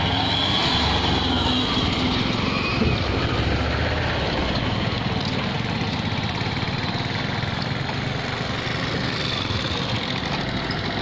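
Road traffic moving over a level crossing: the engines of a light truck and a motorcycle running as they cross. The engine sound is strongest in the first few seconds, then eases.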